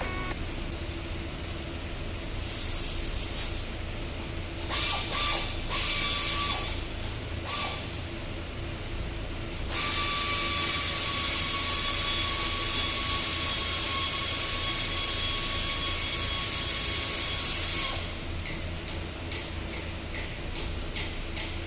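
Pneumatic air tool run in short bursts, then held on for one long run of about eight seconds: a high whine over a steady hiss of air.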